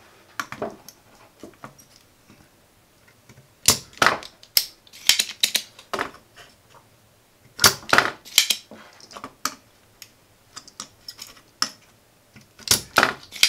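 Spring-loaded desoldering pump being cocked and fired while desoldering a circuit board: groups of sharp plastic clicks and snaps, coming four times, starting about three and a half seconds in and again near the end.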